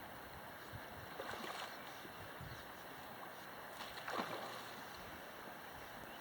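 River water running steadily, with two brief splashes, about one and a half and four seconds in, the second the louder.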